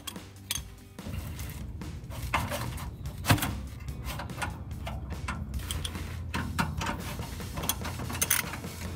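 Hand tools clicking and knocking on exhaust band-clamp hardware while the clamp bolts are tightened, irregular sharp clicks over a low steady hum.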